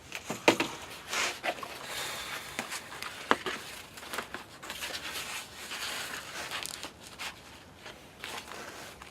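Rustling and crinkling of a stiff pull-down window shade being handled, with a few sharp clicks and knocks.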